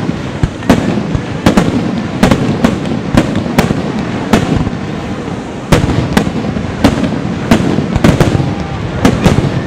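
Aerial firework shells bursting in rapid succession: nearly twenty sharp bangs with a brief lull about five seconds in, over a continuous rumble of echoing reports.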